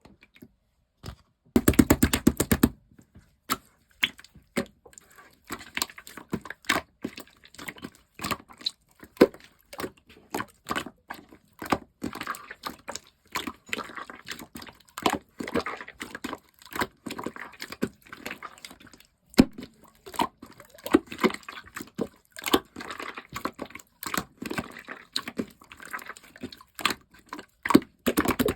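Sky-blue clear slime being played with by hand: an uneven string of small wet clicks and pops, with a dense burst of crackling about two seconds in.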